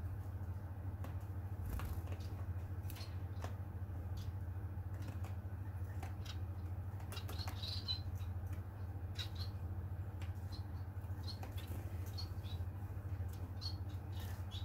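Bengalese finches giving short, high chirps every second or so, mostly in the second half, among scattered light clicks, over a steady low hum.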